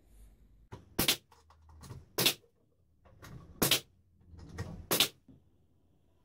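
Four sharp knocks, each led in by a short, softer scraping rustle, spaced about a second and a half apart.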